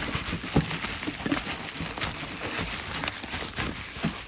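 Packaging crinkling and rustling as exhaust parts are unwrapped and handled, with a few light knocks.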